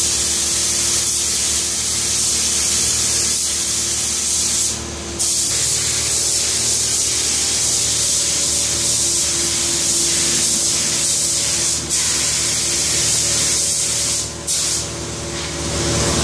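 Gravity-cup air spray gun hissing steadily as it sprays paint, cutting out briefly about five seconds in and twice more near the end as the trigger is let go, over a steady low hum.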